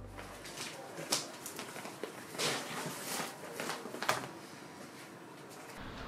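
A handful of light knocks and clicks over a quiet, steady room hiss. The sharpest come about a second in and about four seconds in.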